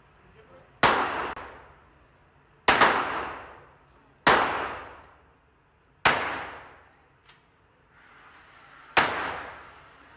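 Pistol fired five times, slow aimed shots one to three seconds apart, each shot ringing out with a long echo off the range walls.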